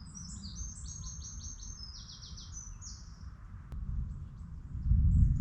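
A small songbird sings one fast, trilled phrase of short, high notes lasting about three seconds, over a steady low rumble. Near the end a much louder deep rumble swells in.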